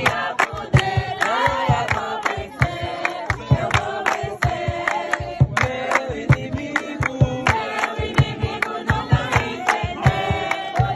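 A group of voices singing together over a steady, fast beat of about three strokes a second.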